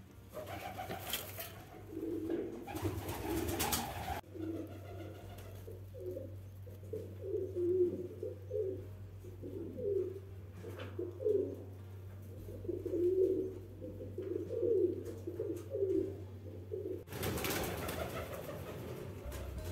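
Domestic pigeon cooing: a long run of low, repeated coos over a steady low hum, with a rough noise before the coos start and again near the end.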